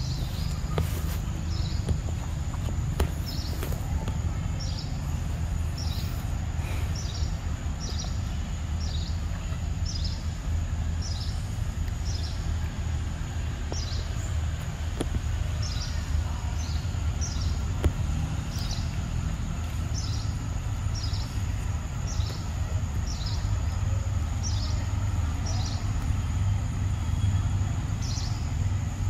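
Outdoor ambience: a steady low rumble with a faint, thin high whine over it, and a short high chirp that falls in pitch, repeated a little more than once a second.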